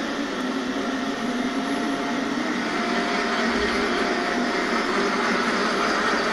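Steady mechanical whirring of a 1/10-scale RC tow truck running, growing slightly louder toward the end.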